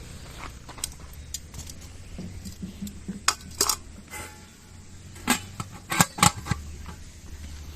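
A series of sharp clinks and knocks from hard objects being handled and set down, loudest in two clusters a few seconds apart.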